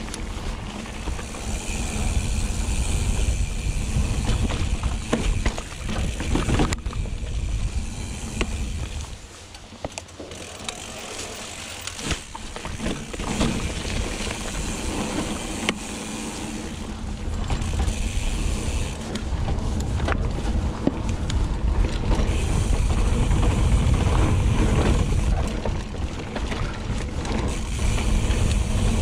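Mountain bike riding over dirt singletrack: a steady low rumble from tyres and passing air, with frequent rattles and knocks from the bike. At stretches the rear Hope Pro 4 hub's freehub buzzes while coasting.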